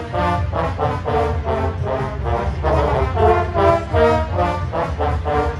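Marching band brass section playing a rhythmic tune in short, repeated notes over a steady low bass.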